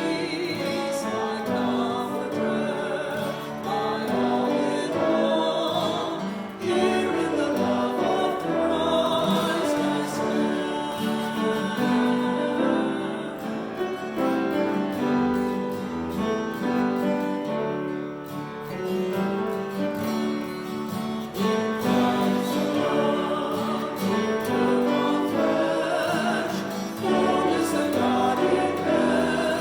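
Choral music: voices singing held, slow-moving lines over instrumental accompaniment.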